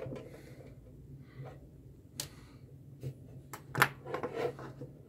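A few knocks and clicks as the metal case of a solder and rework station is handled and turned over on a wooden bench, the sharpest knock about four seconds in, over a steady low hum.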